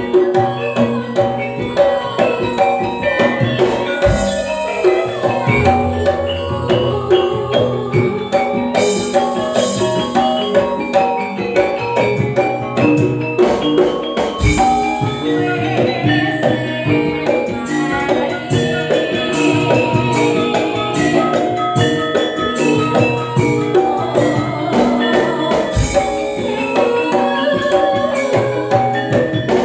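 Campursari ensemble playing an instrumental passage: metallophones ring out a melody over drums and continuous percussion.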